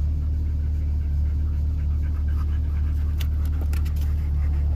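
Steady low drone of an automatic car wash heard from inside the car's cabin, with a German Shepherd panting close by and a few light clicks about three seconds in.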